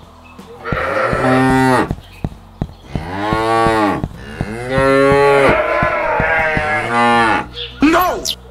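A cow mooing, four long calls in a row, each rising and then falling in pitch. A few quick falling chirps come near the end.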